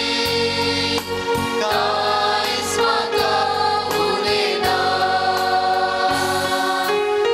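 Choir singing a Christian hymn with instrumental accompaniment.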